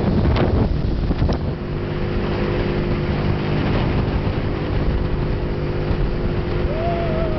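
Outboard motor of a small speedboat running steadily at speed, a constant engine drone with wind buffeting the microphone and a few short knocks in the first second and a half.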